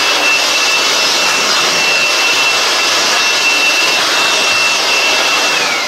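Handheld cordless electric blower running at full speed: a steady high whine over a rush of air. Near the end the motor spins down and the whine falls in pitch.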